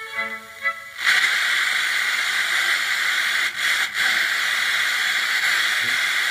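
Blaupunkt Mannheim car radio being tuned between stations: a station's sound fades out, and about a second in gives way to a steady loud hiss of static, with two brief dips near the middle.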